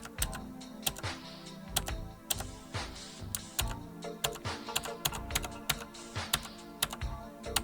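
Keys of an ACGAM mechanical keyboard being pressed: sharp irregular clicks, several a second, as function-key combinations are tapped. Background music with a steady beat plays underneath.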